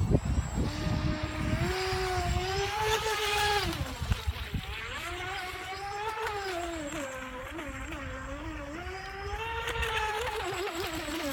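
Brushless electric motor of an Atomik Barbwire RC racing boat whining as the boat runs at speed, its pitch rising and falling several times as it speeds up and eases off.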